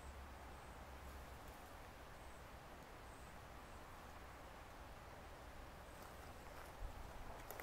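Near-quiet woodland ambience: a faint steady hiss with occasional faint high chirps. Near the end come a few soft clicks and rustles as the black bear shifts in the bushes.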